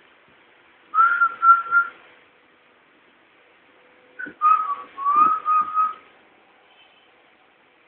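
A person whistling a short tune in two phrases: a few held notes about a second in, then a longer run of notes from about four seconds in.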